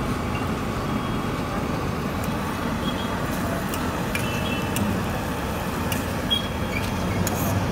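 Steady low rumble of street noise, traffic-like, with a few light clicks and brief high squeaks over it.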